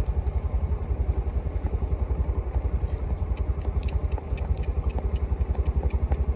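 Motorcycle engine running at low speed, a steady rapid low pulse, with faint light ticking in the second half.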